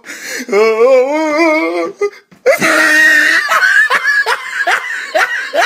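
Loud laughter: a long, wavering drawn-out laugh in the first two seconds, then after a short break a run of quick repeated laugh bursts.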